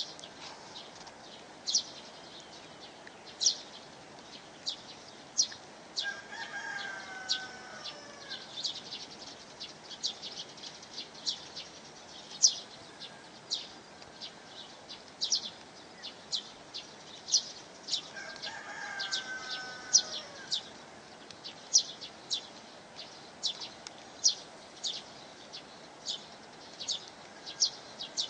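A rooster crowing twice, each crow about two seconds long and falling in pitch at the end. Short, sharp, high-pitched chirps repeat every half second to a second throughout, over a steady background hiss.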